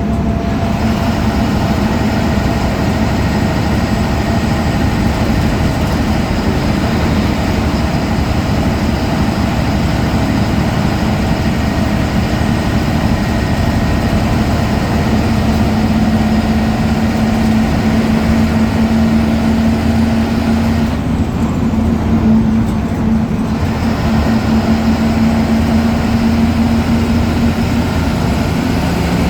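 Ashok Leyland BS4 diesel bus engine running steadily, with a thin high whine from its turbocharger over the engine drone. About two-thirds of the way through, the higher sounds drop away for a couple of seconds, then return.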